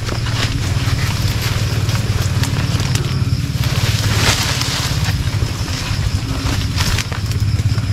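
Crunching and rustling of dense brush and leaves underfoot as someone pushes through thick vegetation, with a few sharp snaps, over a steady low rumble.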